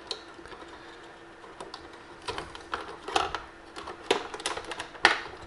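Scattered plastic clicks and knocks from a sewing machine's plastic casing parts being handled and pushed into place, the loudest click about five seconds in.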